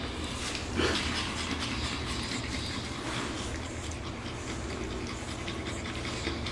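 Pug puppies snuffling and panting, with one short louder noise from them a little under a second in, over a steady low hum.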